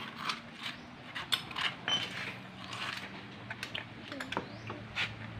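Scattered clicks, knocks and light metal clinks of hands and tools working on a stripped-down motorcycle's engine and wiring, with a faint steady low hum underneath.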